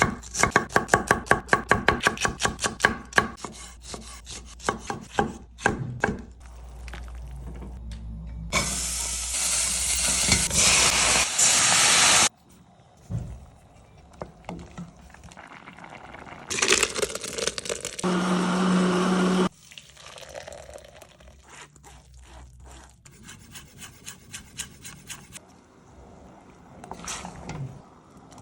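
Knife chopping quickly on a cutting board, about six strokes a second, then two loud spells of hissing a few seconds each, the second with a low steady hum in its latter half. After that come scattered light knocks and scrapes of kitchen utensils.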